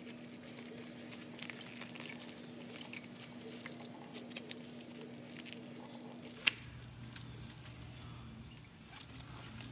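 Wet cloth bundle of cucumber pieces squeezed by hands in thin plastic gloves, giving small squishing crackles and drips of water, with one sharp click about six and a half seconds in. The water being wrung out is the rinse water from the salted cucumbers.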